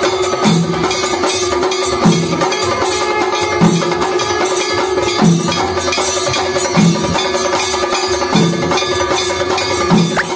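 Music with busy percussion over a steady held drone, and a low drum beat falling about every second and a half.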